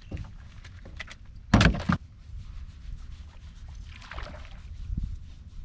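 Small fishing boat, most likely a kayak, on the water: a steady low rumble with scattered light knocks, and one short loud clattering burst about one and a half seconds in.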